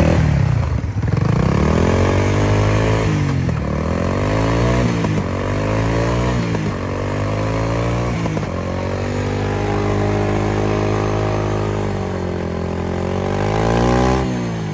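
Yamaha Timberwolf ATV's single-cylinder engine being revved: several blips where the pitch rises and falls in the first eight seconds or so, then held at high revs for about five seconds before dropping back near the end. The owner wonders whether the engine is due for a top-end rebuild.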